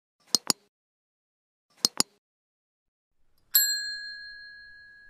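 Subscribe-button animation sound effects: two quick double clicks about a second and a half apart, then a single bright notification-bell ding about three and a half seconds in that rings on and slowly fades.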